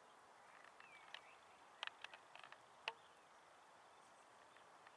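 Near silence: a faint steady hiss, with a brief falling chirp about a second in and a handful of short sharp clicks about two to three seconds in.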